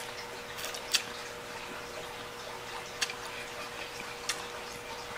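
Pasta being eaten with a plastic fork from a plastic bowl: a few sharp, isolated clicks of chewing and the fork against the bowl, about four in five seconds, over a faint steady hum.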